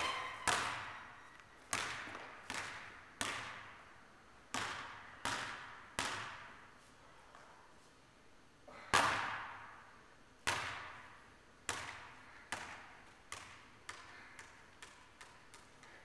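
A basketball hitting the rim and then bouncing on a gym floor, each bounce echoing through the big hall. Near the end the bounces come quicker and softer as the ball settles into a roll.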